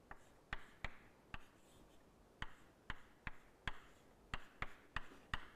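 Chalk on a blackboard as symbols are written: a series of faint, sharp taps and short scrapes at an irregular pace.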